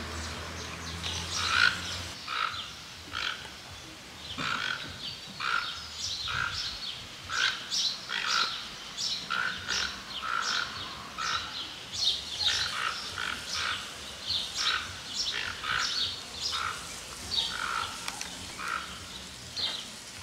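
Toco toucan calling over and over: a short, rasping note repeated steadily, about three every two seconds.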